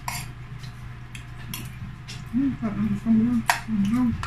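Metal spoon and fork clinking and scraping on ceramic plates and bowls while eating, in scattered sharp clicks. Halfway through, a person hums a wavering, closed-mouth "mmm" for about two seconds.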